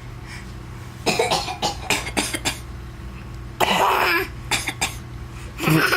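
Several short, deliberate fake coughs spaced out over a few seconds, with a longer, rougher cough-like burst about halfway through.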